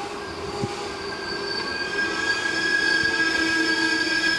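Regional passenger train pulling into a station, wheels rumbling on the rails, with several steady high squealing tones from brakes or wheels that grow louder as it slows to stop.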